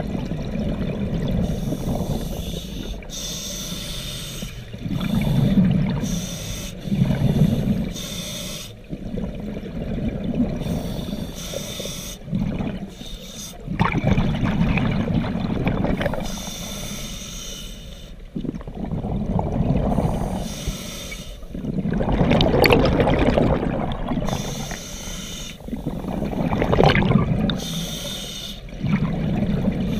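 Scuba diver breathing through a regulator underwater: hissing inhalations alternate with louder rushes of exhaled bubbles, one breath every few seconds.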